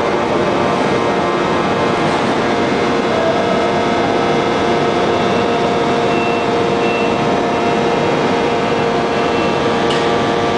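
Open die hydraulic forging press plant running: a loud, steady mechanical noise with several held hum tones over it.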